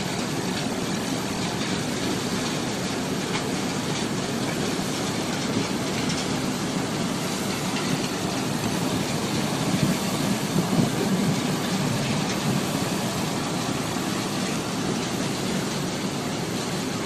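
Sand-processing plant machinery running, a bucket-wheel sand washer with belt conveyors and their drive motors, giving a steady mechanical din that swells briefly a little past the middle.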